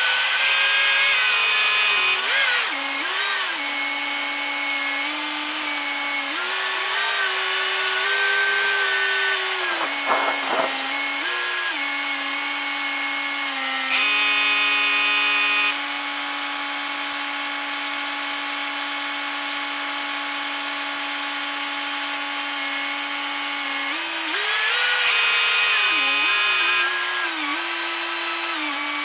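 Truck-mounted crane running under load, its engine and hydraulics giving a steady whine that steps up and down in pitch as the boom works, louder near the start, about halfway through and again near the end.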